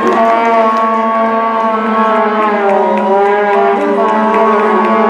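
Arena goal horn sounding a long, steady blast, signalling a goal.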